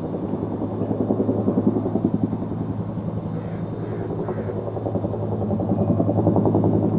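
A motor with a fast, even throb over a steady low hum, growing louder over the last couple of seconds.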